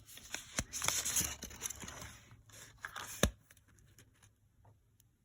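A paper instruction sheet rustling and crinkling as it is handled and unfolded, with one sharp snap a little over three seconds in.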